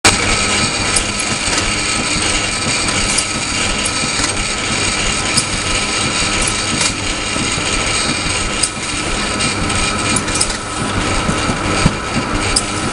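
Simon 350 corrugated-board casemaker, a three-colour printer with rotary die cutter, running steadily: a continuous machine din with a steady whine and scattered sharp clicks as sheets feed through and stack.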